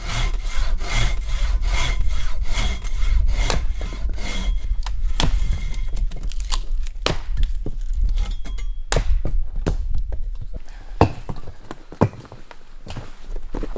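Hand saw cutting through a log on a wooden sawbuck, quick rasping back-and-forth strokes for about six seconds. After that the sawing thins out and a few sharp wooden knocks follow.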